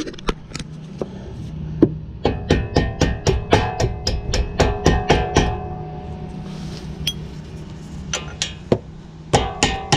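Background music of plucked guitar with a steady, rhythmic picking pattern.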